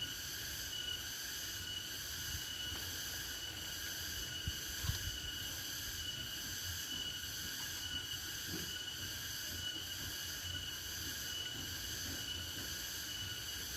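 An insect chorus, crickets or cicadas, chirring: a steady high trill with a second layer pulsing about once a second. Under it runs a low rumble with a couple of soft thumps.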